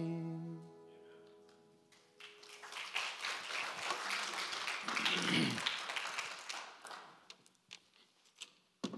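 The last strummed chord of an acoustic guitar rings and fades out over about two seconds. Audience applause follows for about five seconds. A few clicks and a thump come near the end.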